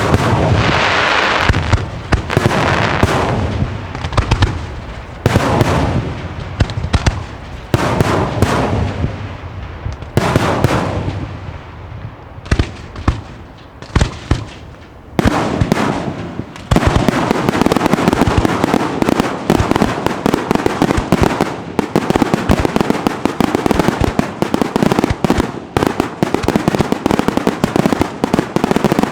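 Fireworks display: aerial shells bursting one after another, each bang trailing off into a rumbling echo. From about sixteen seconds in, the bursts merge into a dense, continuous barrage of rapid bangs and crackling.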